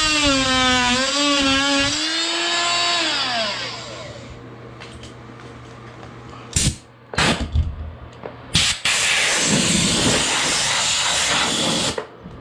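A power tool's motor runs with a high whine, dips in pitch under load, then winds down to a stop in the first few seconds. Several sharp knocks follow. Near the end comes about three seconds of loud rushing noise that cuts off abruptly.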